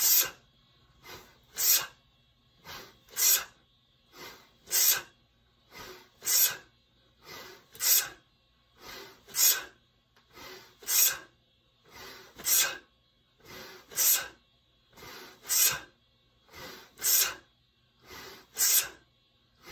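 A man's forceful breathing in rhythm with two-handed kettlebell swings: a sharp, hissing breath at each swing, about one every one and a half seconds, with a quieter breath between, about thirteen swings in all.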